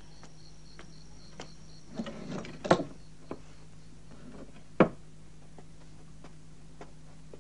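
A handful of light, scattered knocks and clicks, the sharpest about three and five seconds in, over a steady low hum.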